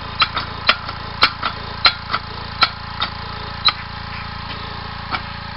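Homemade compressed-air engine built from a weed whacker engine with a sewing-machine flywheel, turning over in a run of sharp puffing clicks that come farther and farther apart and die out after about four seconds, with one last puff near the end. It fails to keep running. An air compressor runs steadily underneath.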